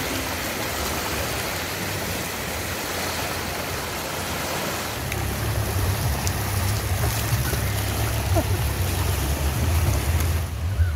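Small sea waves breaking and washing up the shoreline, a steady hiss of surf, with a low rumble joining about five seconds in.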